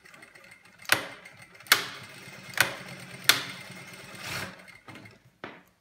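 Jack A4 computerised direct-drive industrial lockstitch sewing machine stitching through denim, running with a steady hum for a few seconds, with a sharp mechanical clack about once a second and another near the end.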